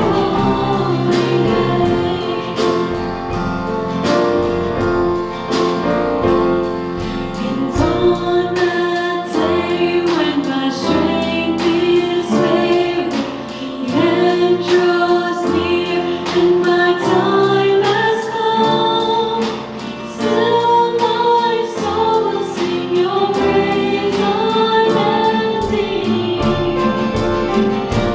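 Christian worship song: a choir singing a melody over instrumental accompaniment with a steady beat.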